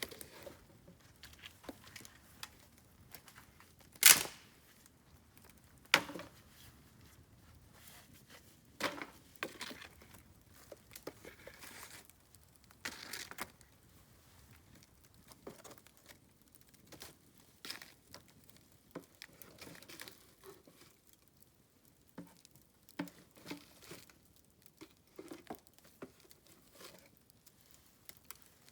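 Bamboo burning in an open fire, crackling irregularly, with two loud sharp pops about four and six seconds in.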